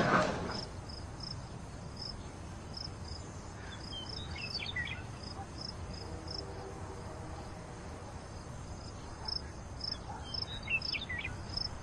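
Crickets chirping: repeated short, high chirps, with a couple of brief falling calls about four seconds in and again near the end.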